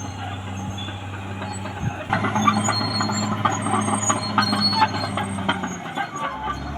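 Caterpillar D6R XL bulldozer's diesel engine running steadily, with loud clanking and knocking starting about two seconds in as the machine works. Near the end the engine note drops lower.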